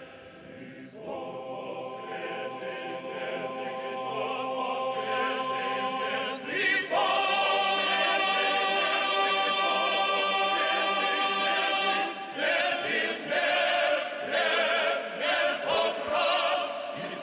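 A choir singing long held chords, with a new chord coming in about a second in and a higher one about six and a half seconds in, then shorter, moving notes from about twelve seconds.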